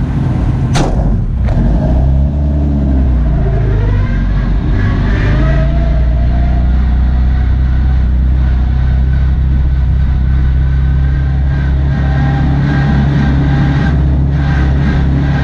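Engine of the MiniStip slalom car, heard from on board, running at low, steady revs while the car rolls along slowly. Two sharp cracks come about a second in, and the engine note shifts in pitch a couple of seconds later before settling.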